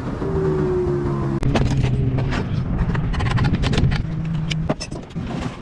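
Helicopter engine and rotor running, heard from the cockpit, for about the first second and a half. Then a quick run of clicks and scrapes as hands work the latch of a metal box, with the engine hum still running underneath until it drops away near the end.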